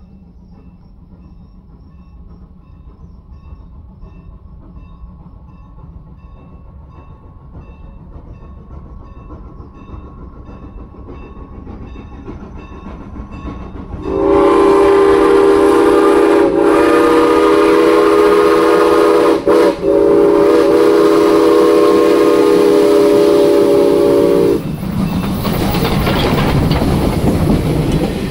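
A grade-crossing bell dings steadily while a steam train rumbles closer. About halfway through, Norfolk & Western 475's steam chime whistle sounds a long, loud blast for the crossing, broken twice briefly, for about ten seconds. Then the passenger cars roll by close at hand with wheels clacking over the rail joints.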